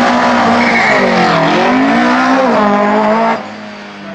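Opel Kadett C Coupé Böhm 16V race car's four-cylinder 16-valve engine at high revs as the car pulls away, its pitch dipping and climbing twice. About three seconds in the sound drops away sharply.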